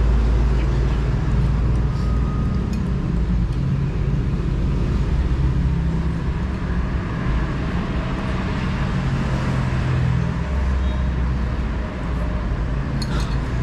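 Steady low motor rumble and hum, with a few faint clicks.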